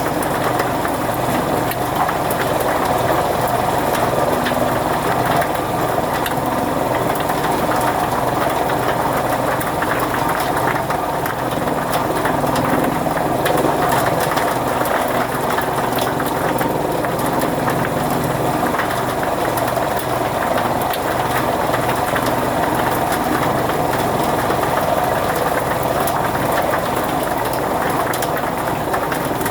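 Engine-driven chaff cutter (fodder-cutting machine) running steadily, a constant mechanical drone with a light rapid clatter.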